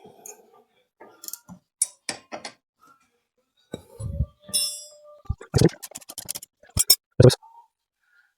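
Irregular metal clinks and knocks of hand tools on the motorcycle's engine bolts and frame, some taps ringing briefly, coming thicker in the second half.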